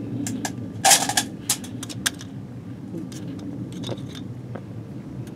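Light metal clinks and scrapes as a fork handles the thin metal parts of a backpacking alcohol stove, setting the simmer ring in place. There is a louder clatter about a second in, then several sharp single clinks.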